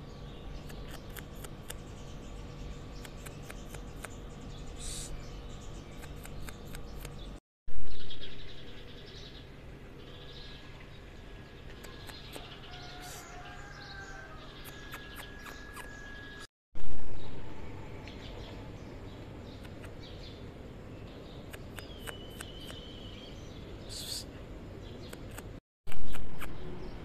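Outdoor ambience of small birds chirping and twittering over a steady low background hum. Three times a sudden loud burst starts and fades away over about a second.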